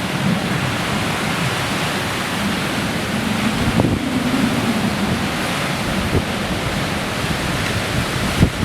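Hurricane Matthew's wind blowing hard and steadily across the microphone, with the noise of heavy surf beneath it.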